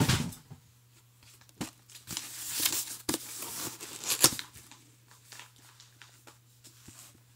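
Packaging being torn open and crinkled while unboxing: rips and rustles with sharp snaps, busiest between about two and four and a half seconds in, then a few faint small rustles.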